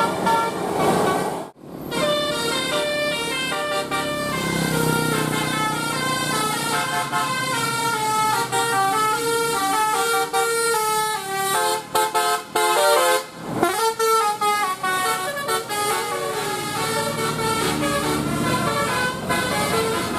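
Bus 'telolet' horns: multi-tone air horns playing fast stepping melodies, note after note, over bus engine noise. The sound breaks off abruptly twice, about a second and a half in and again past the middle.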